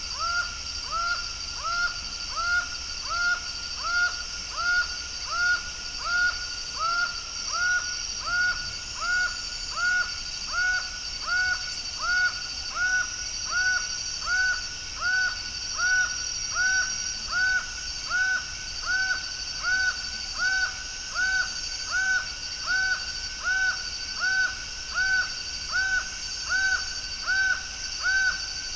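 Laughing falcon (acauã) singing: a long unbroken series of evenly repeated hooked notes, about four every three seconds, over a steady high-pitched background hum. The notes creep slightly higher in pitch toward the end.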